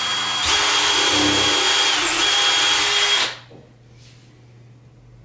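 Cordless drill driving a long screw through a PVC pipe step into a wooden post: a steady motor whine for about three seconds, dipping briefly in pitch partway through, then stopping.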